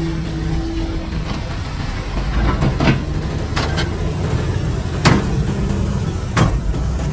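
Diesel engine of heavy earthmoving machinery running steadily, with several sharp metallic clanks and knocks at irregular intervals.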